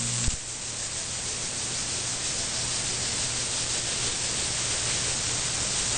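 Steady hiss of open-channel static from an SDR radio receiver tuned to the 11-meter CB band, with no station transmitting. A short click just after the start, as the last transmission drops off the air.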